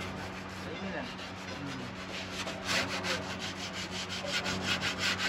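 Hand sanding a filled patch on a car's steel sill with sandpaper: a dry scraping that becomes rapid back-and-forth strokes, about seven a second, louder from about halfway in.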